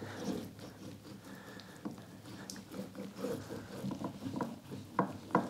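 Rockler glue applicator roller spreading wood glue over the end-grain faces of maple strips: a faint, uneven rolling sound, with two sharp clicks near the end.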